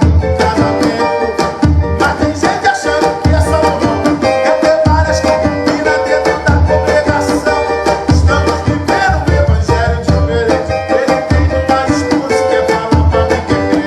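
Lively Pentecostal corinho de fogo music: fast cavaquinho strumming over a tantan drum, with deep drum thuds recurring about every second and a half.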